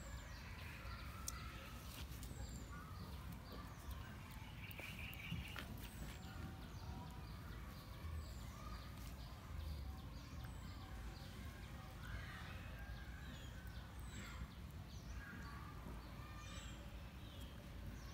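Outdoor ambience with birds chirping: short high falling notes repeated every second or two, with softer chirps lower down, over a low steady rumble.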